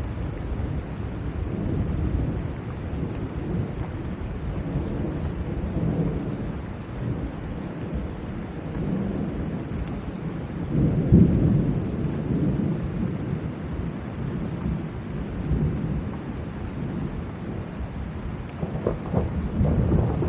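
Steady heavy summer rain with a low rolling rumble of thunder that swells louder about eleven seconds in.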